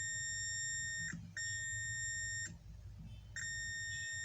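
Multimeter continuity beeper sounding three steady, high-pitched beeps of about a second each as the probes touch the board near the discharging MOSFET: the beep marks a short to ground on the laptop motherboard.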